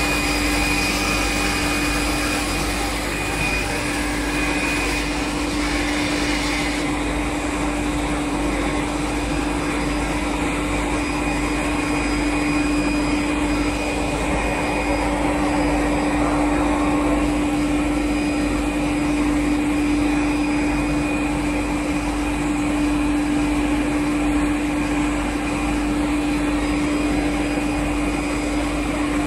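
A 22 kW single-shaft multi-rip circular saw machine runs steadily with a constant hum under a hiss while it rips a stack of thin HDF sheets into strips. The higher hiss eases somewhat about seven seconds in.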